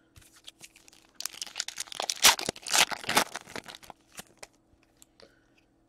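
Foil wrapper of a hockey card pack being torn open and crinkled by hand: a burst of crackling tears about a second in, loudest around two to three seconds, then trailing off into a few light crinkles.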